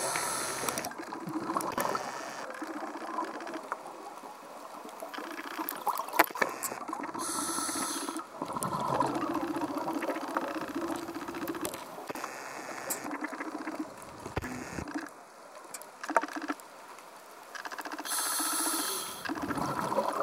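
Scuba diver breathing through a regulator under water: three hissing inhalations, near the start, about seven seconds in and near the end, with bubbling exhalations between them.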